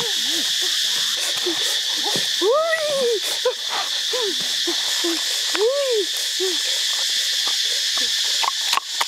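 A steady high insect drone, with repeated short animal calls that rise and fall in pitch. Near the end, a wooden pestle starts knocking into a wooden mortar.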